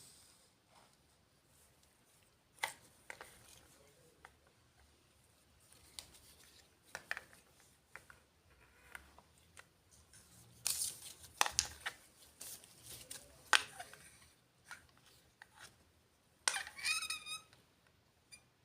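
Small plastic doll-house furniture pieces and their packaging being handled: scattered clicks and taps as parts are set down or snapped together, with short stretches of rustling and crinkling, and a brief squeak near the end.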